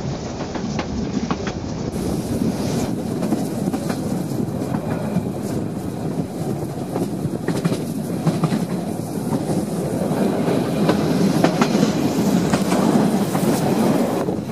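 Narrow-gauge steam train running along the track, heard from on board: a steady rumble of wheels on rails with irregular sharp clicks from the rail joints, growing a little louder in the second half.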